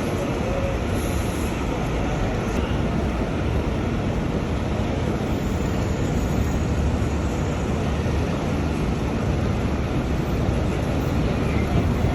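Steady, loud rumbling noise of a moving train, likely a subway, with no breaks.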